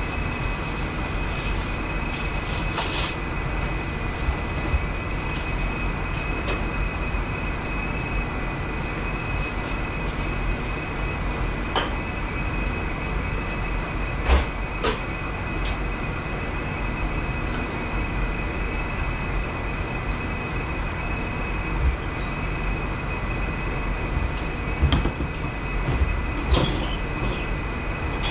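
Steady noise of a commercial kitchen's ventilation and equipment running, with a thin high whine over it. A few short clinks and knocks of utensils and pans come through it, most around the middle and near the end.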